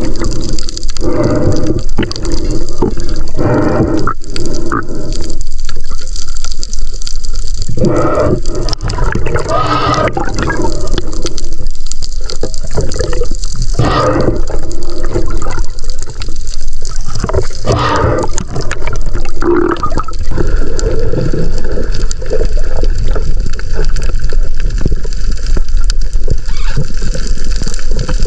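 Water sloshing and gurgling around a camera held underwater, coming in uneven surges for most of the time, then settling into a steadier wash near the end.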